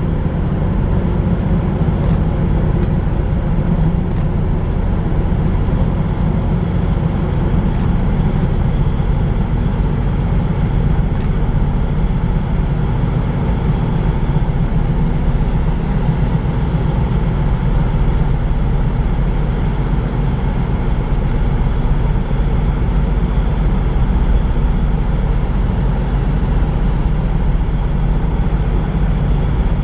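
Steady low engine drone of a large Ro-Ro vehicle carrier under way, a deep even rumble with a faint hum in it that does not change.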